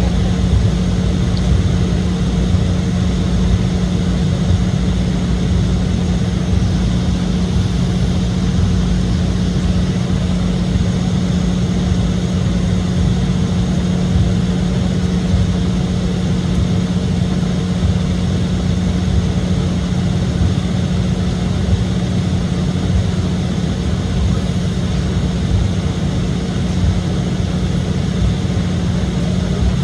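Steady jet engine and airflow noise inside the cabin of an Embraer E175 airliner: an even rush with a constant low hum and a fainter higher tone.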